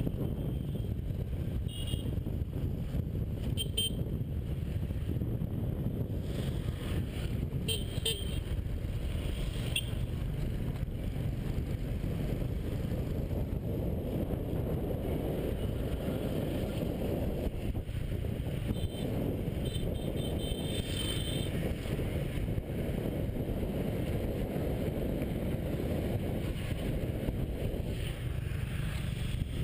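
Steady rumble of a moving motorbike and wind on its camera microphone, riding through city traffic, with a few short horn toots from the traffic, the clearest about twenty seconds in.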